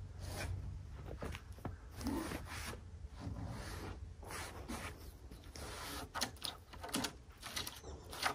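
Scrapes, scuffs and knocks of heavy sawn American chestnut slabs being shifted and slid by gloved hands, in short irregular bursts over a low steady hum.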